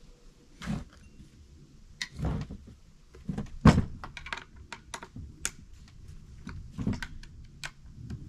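Clicks and knocks of a screwdriver and the plastic housing of a new Supmix 62 cc chainsaw being handled on a wooden table while its loose screws are tightened. There are several louder knocks, the loudest about three and a half seconds in.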